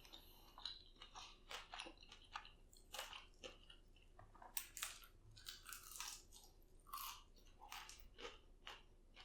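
Quiet, close-miked chewing of a chicken wing coated in crunchy Cheetos: irregular crisp crunches as the coating breaks between the teeth.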